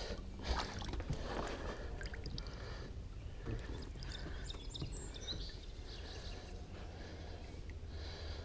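Soft water splashing and lapping as a large musky is held by the tail in the river at the boat's side to be revived before release, with a few brief high chirps in the middle.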